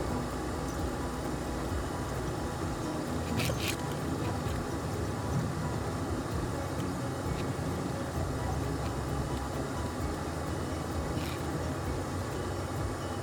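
Off-road vehicle driving a dirt trail: a steady low rumble of engine and tyres, with a couple of brief knocks or rattles, once a few seconds in and again near the end.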